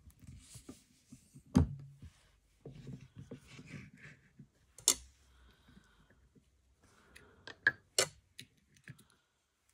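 Hand-operated button badge maker being worked: scattered clicks and rustles of the die and parts being handled, with three sharp knocks about a second and a half, five and eight seconds in.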